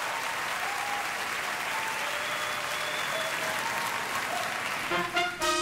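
Large theatre audience applauding, with faint held musical notes under the clapping. About five seconds in the applause dies away and the accompaniment of a stage musical number begins with steady held notes.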